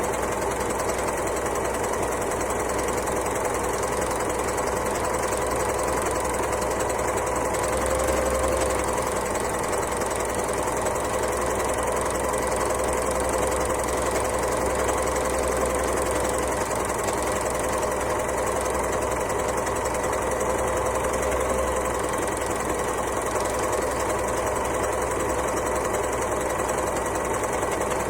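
Overlocker (serger) sewing machine running continuously at a steady speed: a dense, rapid mechanical chatter over a steady hum.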